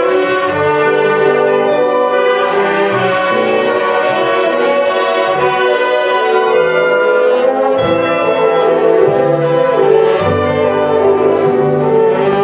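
Live wind band of saxophones, trombones and trumpets playing held chords together, with short percussion strikes now and then.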